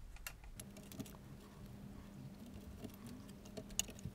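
Faint handling noise of power supply leads being pushed onto the connector pins of a BBC Micro motherboard: small scattered clicks and taps, with one sharper click near the end. A faint steady hum comes in about half a second in.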